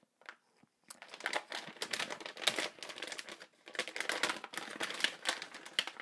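Metallised anti-static plastic bag around a motherboard crinkling as it is handled. It makes a dense run of crackles starting about a second in.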